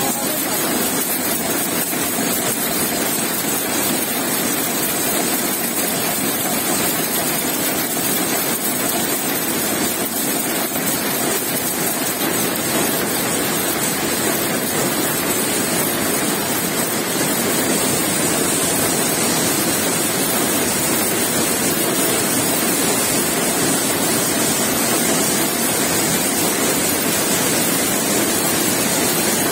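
Projectile (shuttleless) looms running in a weaving shed: a loud, dense, steady mechanical din with no separate beats standing out.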